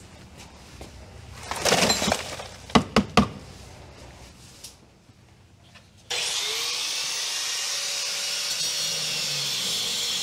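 Rummaging and clattering through debris, with three sharp knocks about three seconds in. About six seconds in, an angle grinder with a wire brush starts abruptly and runs steadily, scouring the floor of the enclosure.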